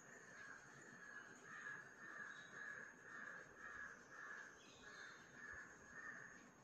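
Faint, rhythmic scratching of a dark green oil pastel stick shading on paper, about two strokes a second.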